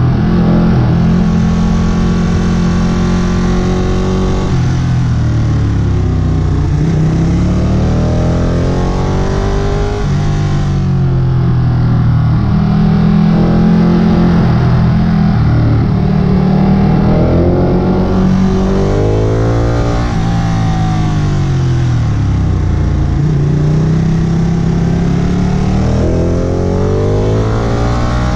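Sportbike engine heard from the rider's seat, accelerating and easing off through a series of bends, its note rising and falling again and again as the rider works the throttle and gears, with steady wind and road noise underneath.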